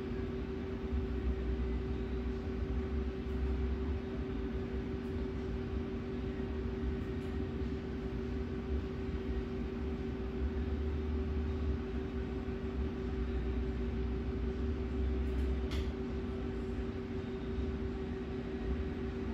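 Steady hum of room equipment, with two steady tones over a low rumble that swells and fades every few seconds, and one faint click about three-quarters of the way through.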